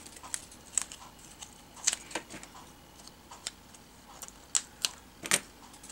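Cardstock and craft foam pieces being handled on a cutting mat: scattered light taps, clicks and paper rustles, the loudest near the end.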